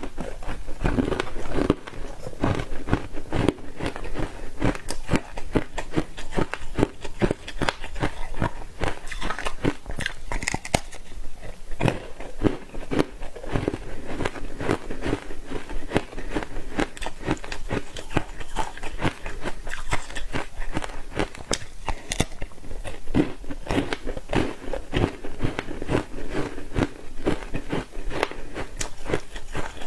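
A person biting and chewing hard ice dusted with matcha powder, close to the microphone: a dense run of rapid crunches and crackles that never lets up.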